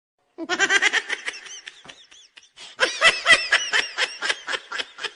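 High-pitched giggling laughter in quick bursts. It starts about half a second in and comes in two runs, with a short pause around two seconds in.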